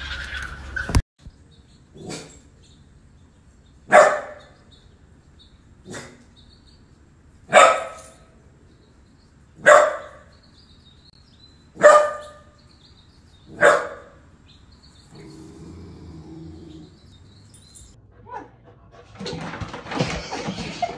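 Puppy barking: about seven short single barks spaced roughly two seconds apart, two of them fainter than the rest.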